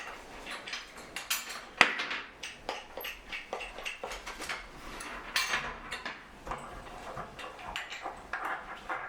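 Clicking and knocking of loom parts and bolts being handled during disassembly of a Newcomb studio loom, an irregular run of small clatters with one sharp knock about two seconds in.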